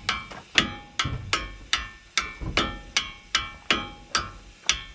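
Steady hammer blows on metal, about two or three a second, each ringing briefly, as a part is driven out through the back of a pickup's front hub.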